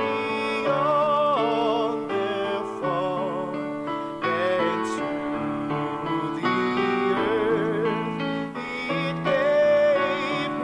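A slow hymn sung by a single singer with strong vibrato over sustained keyboard chords: the communion hymn at Mass.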